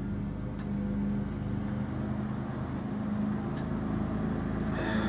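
Steady low electrical hum of room tone, with a few faint clicks. Near the end there is a sharper knock as a ceramic mug is set down on the desk.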